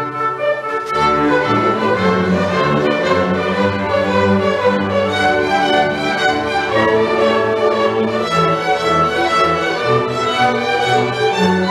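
Orchestra of violins, violas and cellos playing a classical piece in sustained chords over a steady low string line, the texture filling out about a second in.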